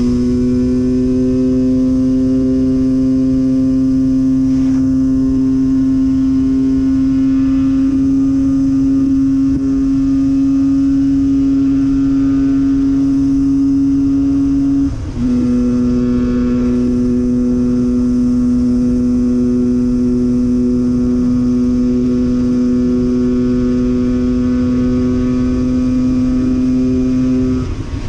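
Husqvarna 125 WRE's single-cylinder two-stroke engine under way at steady revs, its transmission oil freshly changed. The note holds even, dips briefly about halfway through, then settles slightly lower and drops off near the end.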